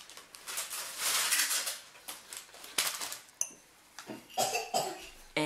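Rustling and light clicking of hands handling a beaded pendant and drawing thread through the beads, with one sharper click a little before the middle.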